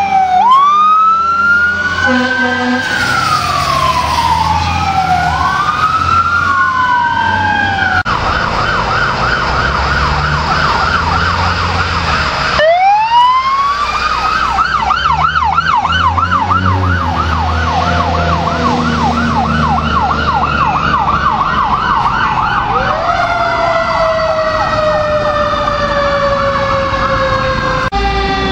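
Fire truck sirens on emergency response: slow wails rising and falling, switching to a fast yelp for long stretches. A long slowly falling tone comes near the end, over a steady low engine rumble.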